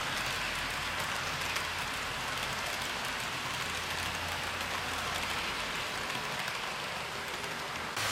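HO-scale model train of baggage and mail cars rolling along the track: a steady rushing hiss of metal wheels on rail with a faint low hum, easing slightly as the train runs away, then stepping louder at a cut near the end.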